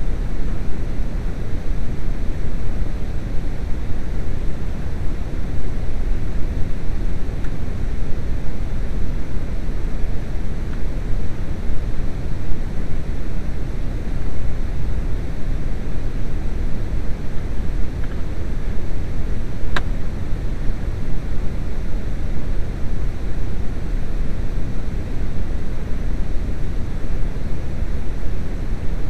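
Steady, loud rumbling noise with no distinct tone or rhythm, and one sharp click about twenty seconds in.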